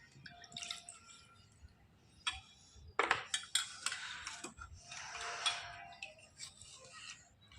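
Slate pencils clicking and clinking against one another as they are handled, with a stretch of rubbing or scraping about two-thirds of the way in.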